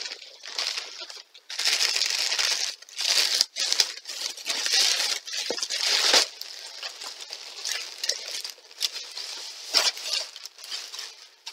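Plastic mailer bag crinkling and rustling in irregular bursts as it is handled and a box is pulled out of it.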